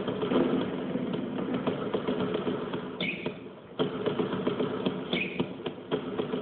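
Several basketballs dribbled on a hardwood gym floor, a dense clatter of bounces, with short high sneaker squeaks about three seconds in and again about five seconds in.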